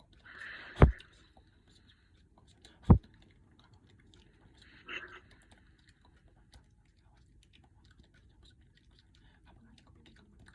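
Two sharp, loud knocks about two seconds apart, the first led in by a brief breathy hiss, over faint scattered clicking.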